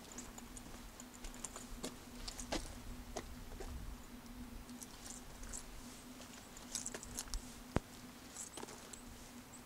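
Footsteps climbing a forest path of flat stone steps strewn with dry cedar needles and twigs: irregular light crunches and crackles, with one sharp click near the end, over a faint steady hum.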